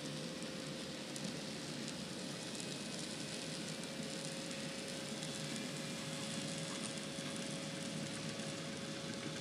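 N scale model freight train running past: a steady rushing hiss of small wheels on rail, with faint fine clicking and a thin steady tone under it.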